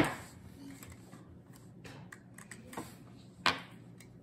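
Handling sounds on a wooden table: a sharp knock at the start and another about three and a half seconds in, with small clicks between, as a stock Kubota tractor speaker is set down and a bare test wire is touched to its terminals. The speaker is dead and gives no pop of its own.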